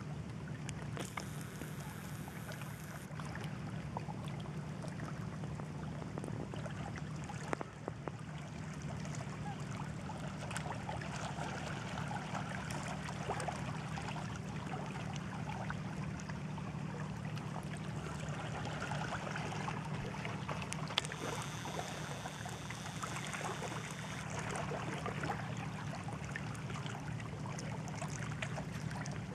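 Gentle seawater lapping and trickling around shoreline rocks, over a steady low hum.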